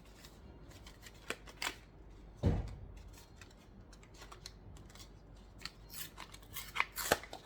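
Cardboard and plastic packaging of a smartwatch box being handled as the charger is lifted out: scattered light clicks and rustles, with a dull thump about two and a half seconds in and a run of sharper clicks near the end.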